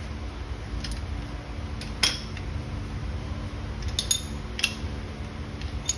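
A handful of sharp metallic clinks and taps, the loudest about two seconds in and a quick pair about four seconds in, each ringing briefly, over a steady low hum.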